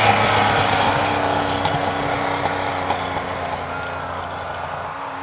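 Rally car driving away at speed, its engine sound fading steadily.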